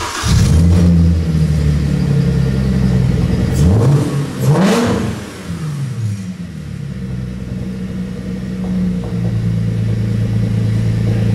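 Mercedes-Benz W204 C300's 3.0-litre V6 running just after starting up, with two throttle blips about four seconds in that rise and fall in pitch, then settling back to a steady idle.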